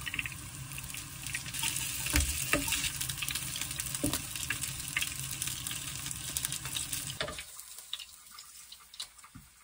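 Battered gimmari (fried seaweed rolls) sizzling in shallow oil in a square frying pan, with a few sharp clicks of metal tongs against the pan and the wooden board as the rolls are lifted out. The sizzling stops abruptly about seven and a half seconds in.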